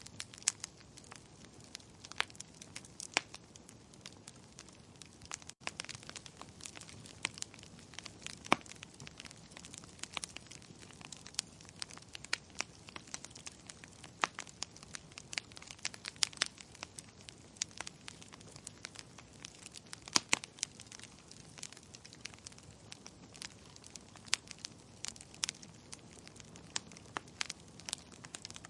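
Burning wood logs crackling, with irregular sharp pops several times a second over a steady faint hiss; the loudest pops come about a third of the way in and again past the middle.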